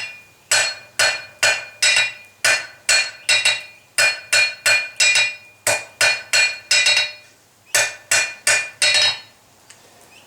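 Hand hammer striking hot 12 mm rebar on an anvil, squaring up the bar: a steady run of ringing blows at about two a second, with a couple of short pauses, stopping shortly before the end.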